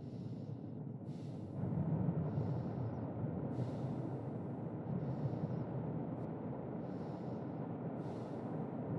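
Slow, even breathing of a sleeping person, each breath a soft hiss repeating about every second or so. Under it runs a steady low storm rumble that swells about one and a half seconds in.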